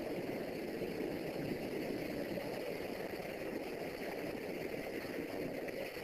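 Tsunami floodwater rushing through a town: a steady, dull rushing noise of moving water, heard through a camcorder's built-in microphone.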